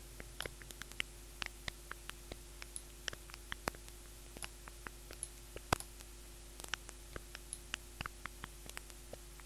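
Synthesized crackle from a Vital software-synth patch meant to imitate crumpling paper: sparse, irregular clicks and tiny noise bursts of varying brightness, randomly timed.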